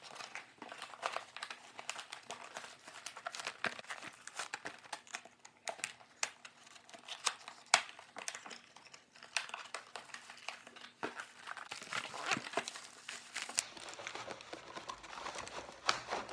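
Cardboard box and plastic packaging being handled and opened, with a steady run of irregular crinkling, rustling and small clicks as the contents are unpacked.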